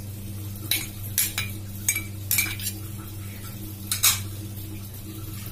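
Steel spoon clinking and scraping against steel bowls as chopped coriander leaves are pushed out of a small bowl: a string of sharp, irregular clinks, the loudest about four seconds in. A steady low hum runs underneath.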